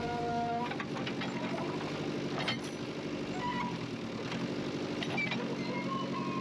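Backhoe excavator's diesel engine running steadily, with a few short high squeaks and a sharp click about two and a half seconds in.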